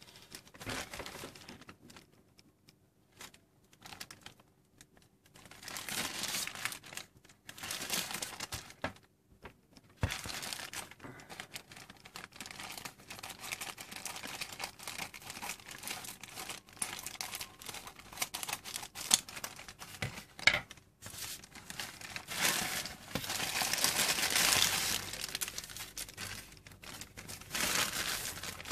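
Plastic mailing bag crinkling in irregular bursts as it is handled and cut open with scissors, with a few sharp clicks. The longest and loudest crinkling comes about three-quarters of the way through.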